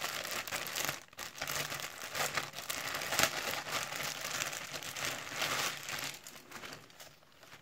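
Clear plastic clothing bag crinkling and rustling as it is handled and a T-shirt is pulled out of it; the crinkling dies away near the end.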